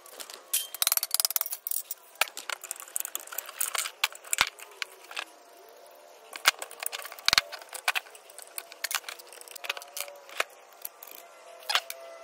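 Scattered metal clicks and clinks as hand tools and the metal parts of a vacuum cleaner motor are handled while the motor is broken down for scrap.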